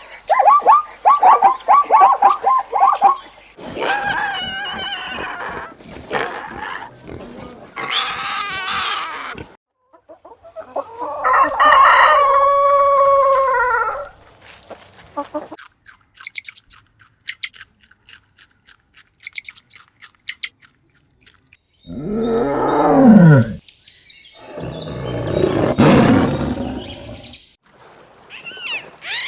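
A run of separate animal calls, among them a rooster crowing once, a long call about a third of the way in, along with rapid clucking-like pulses at the start and high chirps midway.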